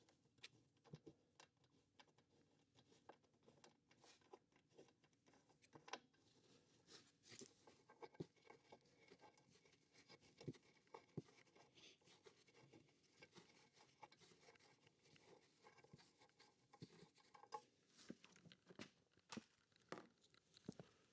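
Near silence: room tone with faint, scattered small clicks and taps of handling.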